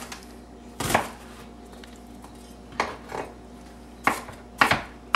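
A knife chopping on a cutting board while guacamole is made: about six sharp knocks at uneven intervals.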